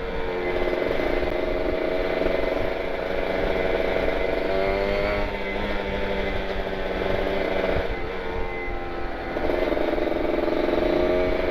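Kawasaki Ninja RR 150's two-stroke single-cylinder engine through an R9 Carbon aftermarket exhaust, running at light throttle in slow traffic, its revs dipping and picking up again a couple of times. Wind rumble on the microphone underneath.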